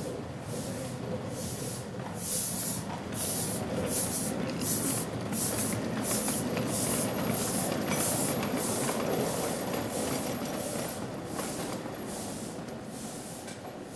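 Small ride-on live-steam locomotive working past, its exhaust chuffing about twice a second with a hiss of steam. The chuffs are loudest in the middle and fade toward the end as it moves away.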